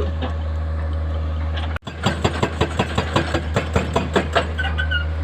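Excavator diesel engine running steadily. After a brief cut about two seconds in, a rapid clatter of roughly five knocks a second runs on over the engine.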